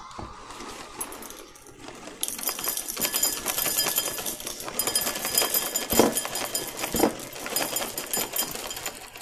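Ring-shaped cereal poured from a box into a bowl: a dense patter of pieces rattling into the bowl. It starts about two seconds in and goes on for several seconds, with a couple of louder knocks near the end.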